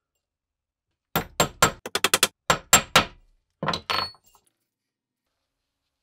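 Hammer tapping a steel pin punch against a pocket-knife liner lying on a steel bench block, driving out its pins: about ten quick sharp taps in two seconds, then a few more a moment later, the last ringing briefly.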